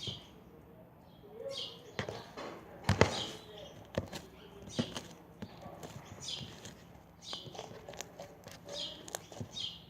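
Fluffy slime being squeezed and poked by hand for ASMR, giving irregular sharp clicks and short squishy hisses, the loudest click about three seconds in.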